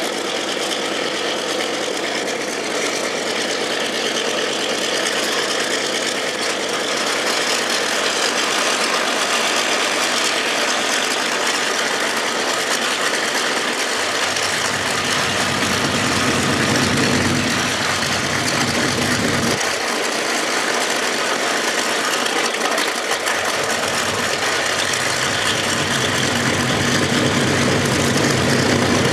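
A Boeing B-29 Superfortress's Wright R-3350 radial engines running steadily at idle after start-up. A deeper low note joins about halfway through and again later on.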